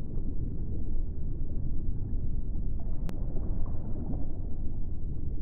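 Underwater ambience sound effect: a deep, steady rumble, with one sharp click about three seconds in.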